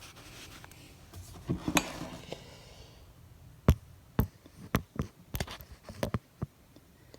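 A run of light, sharp clicks and knocks at irregular spacing, about ten of them in the second half, from hard parts being handled.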